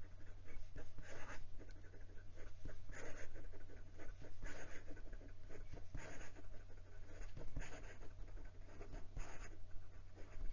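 Jowo fountain pen nib scratching across notebook paper in fast cursive, an irregular run of short strokes. A steady low hum runs underneath.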